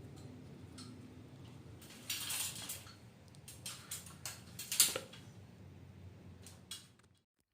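Handling noises: a brief scraping rustle about two seconds in, then a run of sharp clicks and knocks, the loudest near the five-second mark, over a low steady hum. The sound cuts off just before the end.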